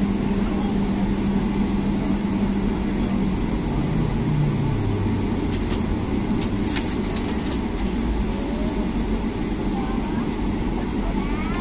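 Boeing 757-200 cabin noise during a slow taxi, the engines running at idle. A steady hum drops in pitch about four seconds in, and a few light clicks come near the middle.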